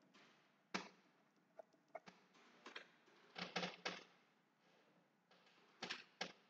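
Pen writing on paper: faint scattered taps and clicks of the pen on the page, with a quick cluster about three and a half seconds in and two more clicks near the end.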